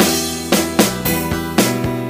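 Electronic keyboard playing a sholawat (Islamic devotional) tune: held chords and melody over a drum beat, with a cymbal crash right at the start.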